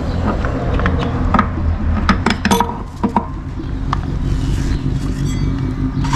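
Metal parts of a 42RE automatic transmission clinking and knocking as it is taken apart by hand, with a cluster of sharp, ringing clicks about two seconds in, over a steady low hum.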